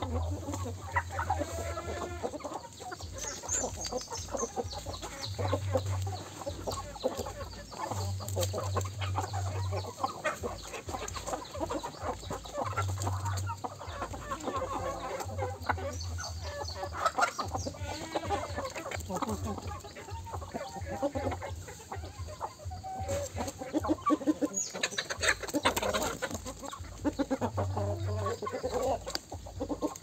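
A flock of free-range chickens clucking and calling continuously, many short overlapping calls from several birds at once.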